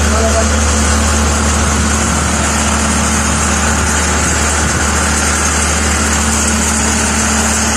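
Horizontal directional drilling rig's engine idling steadily, heard from inside the operator's cab: a constant low hum with no change in speed.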